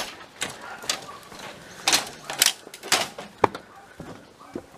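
Several sharp knocks and clacks of hard objects, unevenly spaced: one at the start, then five more close together from about two seconds in.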